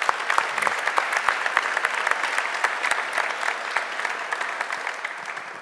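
Audience applauding, with many hands clapping, easing off near the end.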